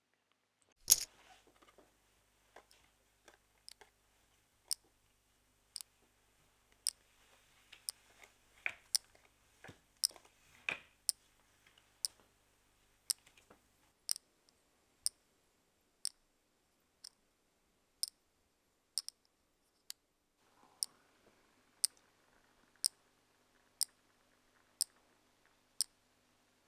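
Wall clock ticking, one sharp tick a second, with a few extra irregular clicks in the first half.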